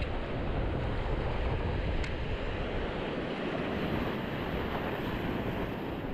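Sea surf washing on the shore, with wind buffeting the microphone in a low rumble.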